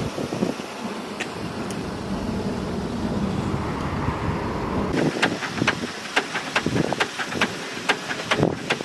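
Steady vehicle rumble, then from about halfway a run of irregular sharp clicks and taps.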